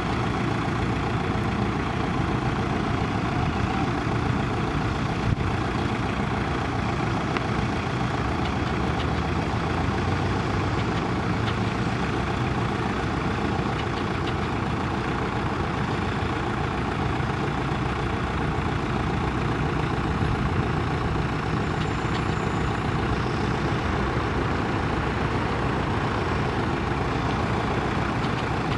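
1999 Isuzu NPR street sweeper truck running, a steady, even diesel drone with sweeper machinery noise, as it creeps across gravel.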